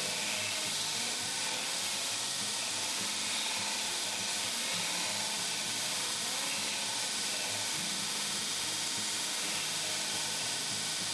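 Vertical belt sander running while the corner of a wooden board is pressed against the moving belt and sanded round. There is a steady hiss of abrasive on wood over the machine's low hum.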